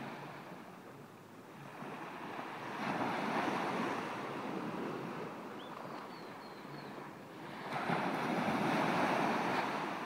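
Small surf waves breaking and washing up onto a sandy beach. The wash swells twice, about three seconds in and again near eight seconds.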